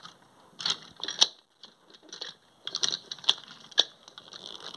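Light plastic clicks and rattles of a TrackMaster push-along toy engine and its truck being handled while their hook couplings are fitted together, with a handful of sharper clicks at irregular intervals.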